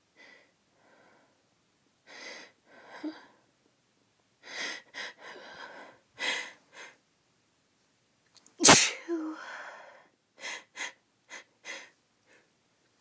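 A woman's uncovered sneeze: a run of short breaths builds up over several seconds, then one loud, sudden sneeze comes about two-thirds of the way in, followed by a few short breaths.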